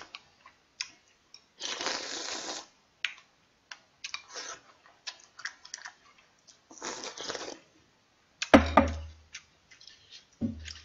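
Slurping clam noodle soup from a bowl: two long slurps with small mouth clicks and utensil taps between them. About 8.5 s in there is a sharp thump with a deep thud, the loudest sound, and a smaller one near the end.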